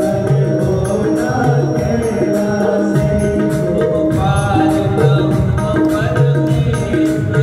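Hindi devotional song (bhajan) played loud through loudspeakers, with a steady hand-drum beat and a singing voice that comes in about four seconds in.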